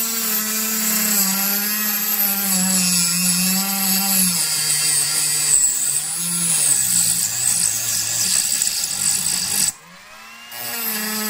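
Dremel rotary tool running with its cutting tip pressed against the side of a steel Reddi-wip whipped cream can. Its pitch wavers and sags as it loads, and it makes no progress on the steel. It cuts out near the end, then spins back up with a rising whine.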